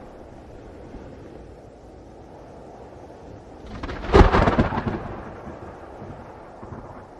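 Thunderstorm recording: a low steady rumble, then a sharp, loud thunderclap about four seconds in that rolls away over about a second.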